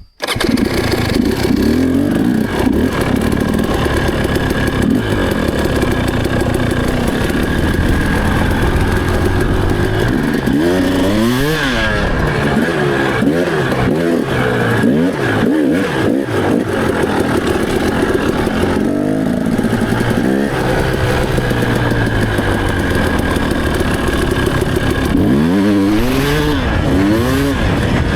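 Enduro motorcycle engine being ridden hard, its revs repeatedly climbing and dropping as the throttle is opened and shut, with several quick rev sweeps around the middle and near the end.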